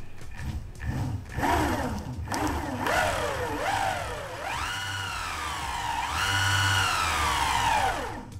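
Electric skateboard's brushless drive motors whining as they are throttled from the remote, spinning the wheels freely in the air. The pitch rises and falls in several short pulses, then holds higher for two longer runs and winds down near the end.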